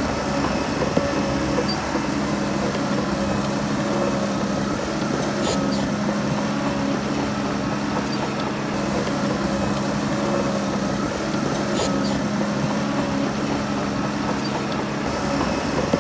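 Heavy diesel engine of earthmoving machinery running steadily, with a few short high-pitched clicks over it.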